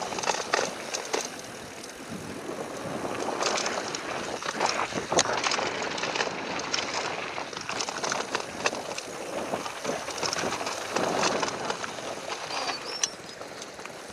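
Ghost FR AMR X6 mountain bike descending a bike-park trail: tyres rolling over dirt with a steady rushing noise, and the bike rattling and knocking over bumps at irregular moments.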